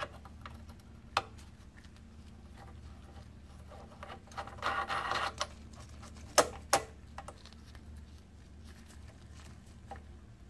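Small clicks and a brief rustle of parts being handled as a throttle wheel is fitted back onto a jet ski carburetor, with two sharp clicks close together about two-thirds of the way through. A steady low hum underlies it all.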